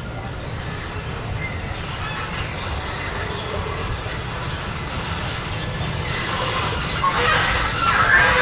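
Long escalator running, with a squealing from its mechanism that grows louder about seven seconds in as it is stepped onto, over a steady low rumble.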